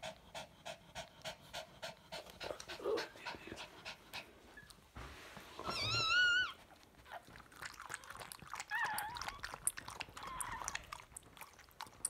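A mother dog in labour panting fast and evenly, about three breaths a second. About six seconds in comes a loud, high, wavering squeal, followed by fainter wavering squeaks a few seconds later.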